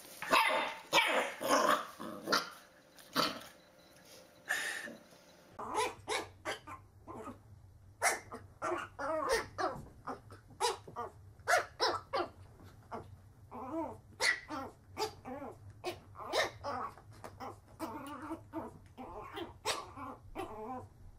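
Puppies barking in short, sharp yaps. About five seconds in, a different small puppy takes over, barking over and over in quick yaps, one or two a second.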